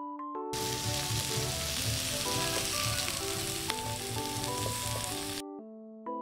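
A steady hiss, like sizzling or heavy rain, cut in abruptly about half a second in and cut off abruptly about five seconds later, under soft electric piano background music.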